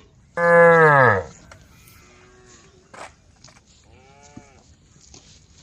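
A cow bellowing: one loud moo about half a second in, lasting under a second and dropping in pitch at the end. Fainter calls follow later.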